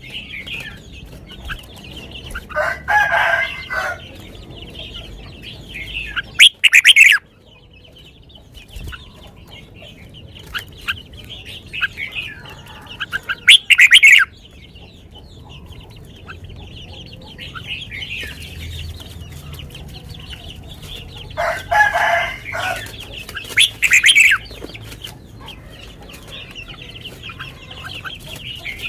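Red-whiskered bulbul singing in short, loud, sweet phrases over steady background chirping of other birds. A rooster crows twice, about 3 seconds in and again about 22 seconds in.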